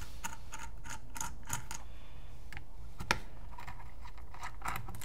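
Small, irregular metal clicks of an Allen key turning in the magwell screws of a Dye Assault Matrix (DAM) paintball marker, about a dozen in all, with one sharper click about three seconds in.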